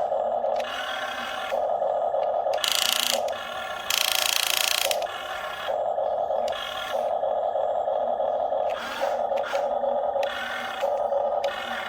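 The small electric motors of a radio-controlled Huina excavator whine in stop-start runs as its arm and grab move, with two louder bursts of rock scraping and clattering a few seconds in.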